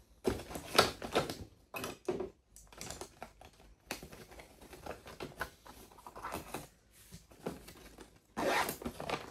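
Fabric backpack being packed by hand: nylon rustling and the light clicks and clatter of brushes and small art supplies slipped into a front pocket. Near the end comes a longer rasping burst as the pocket's zip is pulled.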